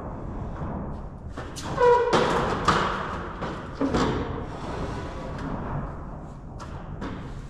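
Irregular thuds and knocks of 2x4 lumber being handled and set in place during framing, with several hard knocks in the first half.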